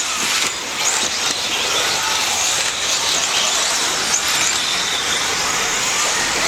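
Several electric 4WD radio-controlled off-road buggies racing on the track: a steady high whine of motors and drivetrains, with short rising and falling whines as the cars speed up and slow down.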